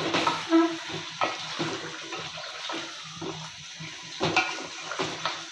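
Raw chicken being stirred into a wet, frying tomato masala in a pot: a watery bubbling sizzle with the spoon scraping and knocking against the pot, a few knocks louder than the rest.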